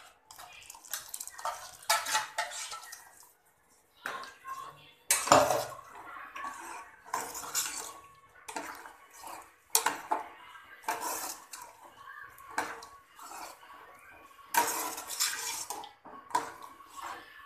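A steel ladle scraping and clinking against a stainless steel pot as sambar is stirred, with the liquid sloshing in irregular strokes about once a second; a loud knock about five seconds in.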